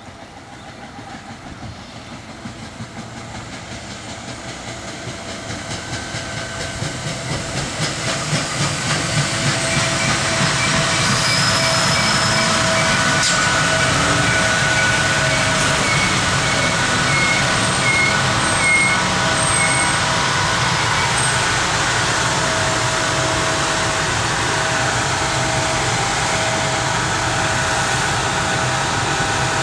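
SEPTA electric commuter train approaching, growing louder over about ten seconds, then running by loud and steady with wheel-on-rail rumble and hiss and a few steady whining tones over it.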